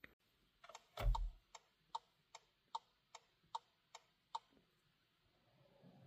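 Skoda Octavia III comfort turn signal ticking after one touch of the indicator stalk: ten even ticks about two and a half a second, so five flashes, as coded for a lane change instead of the stock three. A dull thump comes about a second in, and the ticks stop about four and a half seconds in.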